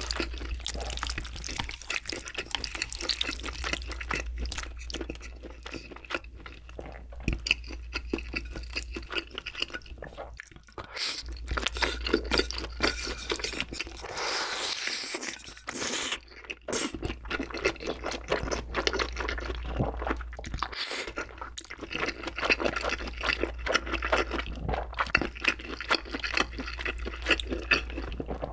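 Close-miked mukbang eating sounds: wet, slippery chewing and slurping of saucy wide glass noodles and soy-braised chicken (jjimdak), with many small sticky clicks throughout.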